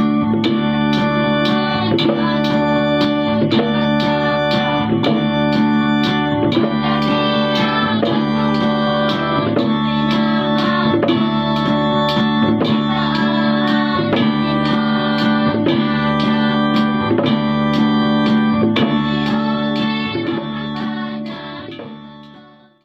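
Choir of women singing a gospel song with acoustic guitar, an organ-like keyboard and a steady beat about twice a second. The music fades out near the end.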